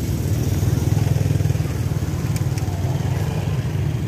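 Motorbike engine idling steadily close by, a low, even rumble.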